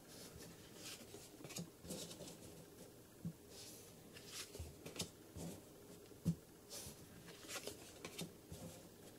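Paper trading cards being slid and flipped through by hand: faint, irregular swishes and light taps of card against card, with one sharper tap about six seconds in.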